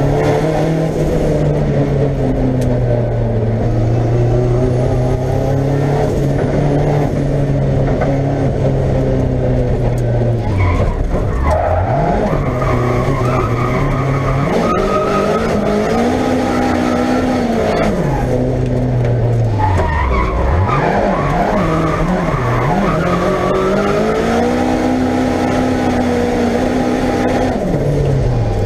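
Opel Ascona race car's engine heard from inside its caged cabin, revving hard with revs falling sharply and climbing back several times as the driver lifts and shifts for the bends of a hillclimb. Tyre squeal comes in as the car drifts.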